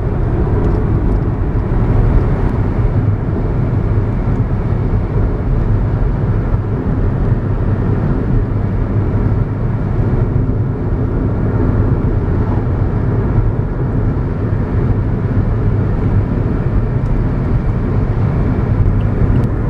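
Steady low rumble of tyre and engine noise heard inside a car's cabin while it cruises along a highway.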